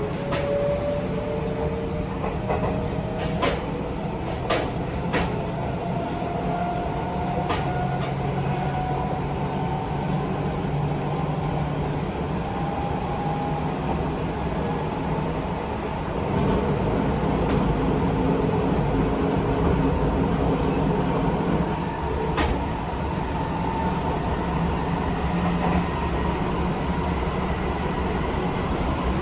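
Seibu 20000 series electric train's Hitachi IGBT-VVVF inverter and traction motors whining, the pitch rising slowly as the train picks up speed, over a steady rumble of wheels on rail. A few sharp clicks from rail joints mark the first eight seconds, and one more comes later on.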